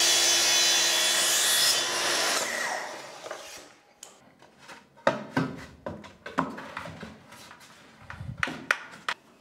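Track saw (plunge-cut circular saw on a guide rail) cutting through a pine plank for about two and a half seconds, then the blade spinning down with a falling whine. Afterwards, several sharp wooden knocks and clatters as the cut boards are handled and set against the wall.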